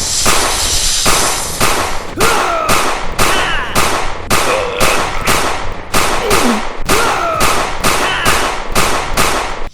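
A rapid run of sharp bangs, about two a second, like firecrackers, with whistling tones sliding up and down between them.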